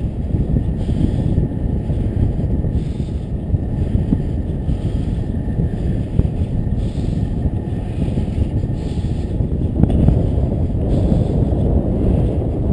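Steady wind rush and low rumble from riding a bicycle along a paved path, the wind buffeting the camera's microphone, a little louder about ten seconds in.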